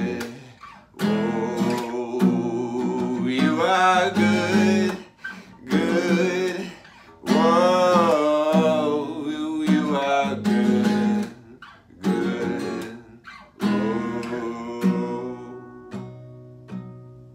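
Taylor acoustic guitar strummed in chords, with a man singing long held notes whose pitch wavers. The strumming thins to lighter single strokes near the end.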